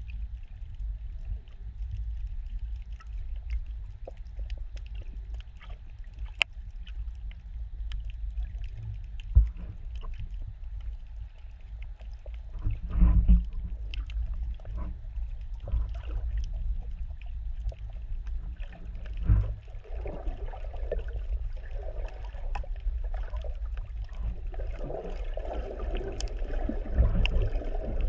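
Muffled underwater sound picked up through a sealed GoPro housing: a steady low rumble with scattered faint clicks and a few dull knocks. Burbling water sounds grow louder over the last third.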